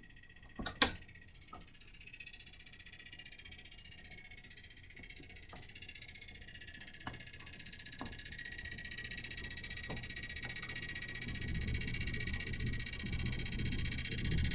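HVAC unit rattling: a high buzzing rattle that slowly grows louder, with a low rumble joining near the end. There is a sharp click about a second in, and a few fainter ticks after it.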